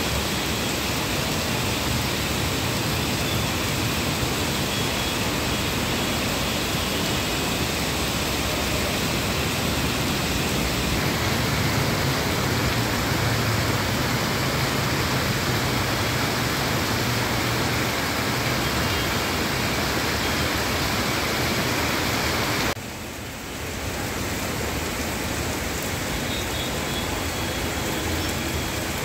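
Heavy rain falling steadily, a dense even hiss. Its tone shifts slightly about eleven seconds in, and it dips briefly about twenty-three seconds in before carrying on.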